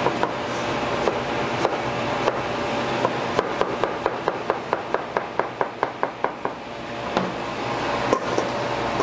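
Chef's knife dicing pineapple on a plastic cutting board: a few scattered knocks, then a quick, even run of chops, about six a second, for about three seconds, over a steady hum.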